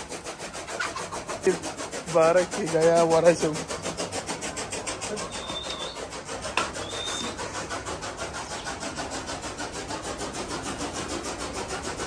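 A machine running steadily with a fast, even rhythm of several beats a second. A man calls out briefly about two seconds in.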